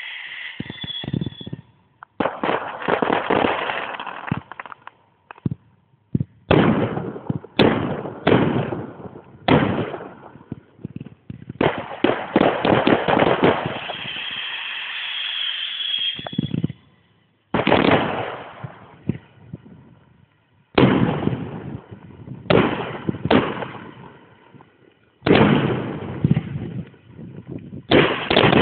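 Fireworks display: aerial shells bursting in rapid volleys of sharp bangs and crackle, with short lulls between salvos.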